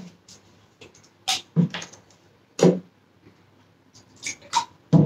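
Several short mouth noises of a person tasting a soft drink: sips and swallows, about five in a few seconds.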